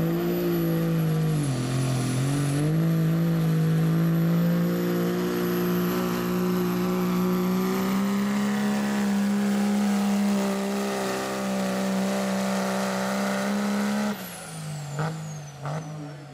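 Dodge Ram turbo-diesel pickup pulling a weight-transfer sled at full throttle. The engine note dips about two seconds in, then climbs slowly and holds, with a high turbo whistle over it. About fourteen seconds in the throttle is lifted: the engine drops toward idle and the turbo whistle winds down.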